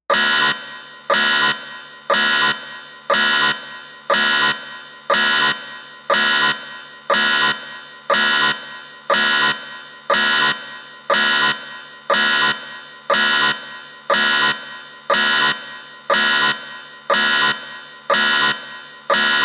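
Electronic timer alarm going off, a buzzy beeping tone in a steady pattern that repeats about once a second, signalling that the 10-minute countdown has ended.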